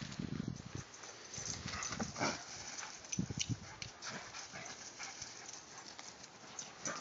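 Two labradoodles running and scuffling on dry grass: irregular paw thuds and rustling, with heavier bursts of thuds just after the start and again about three seconds in.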